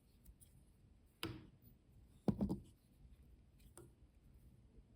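Faint fly-tying handling sounds: thread being wrapped on the hook at the vise, with three or four short, soft clicks and knocks from the tools, the first about a second in and the last near four seconds.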